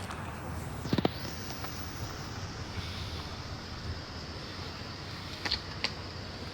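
Steady outdoor street background noise with a sharp knock about a second in and two short clicks near the end.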